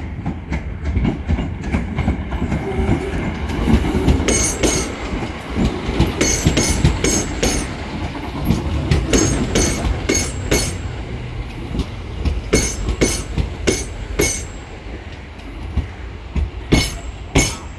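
Greater Anglia Class 317 electric multiple unit running past at close range: a steady low rumble with its wheels clicking over rail joints in quick pairs, bogie after bogie.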